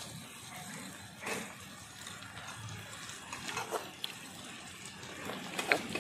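Flat metal spatula scraping and tapping against an iron kadai as whole Bombay duck fish are pressed into frying onions, a few short scrapes and clicks with the sharpest near the end, over a low frying sizzle.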